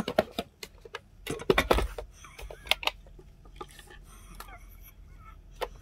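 Knocks and clicks of a UV-LED resin curing lamp being set down over a silicone mold and switched on, followed by a few faint short chirps and a sharp click near the end.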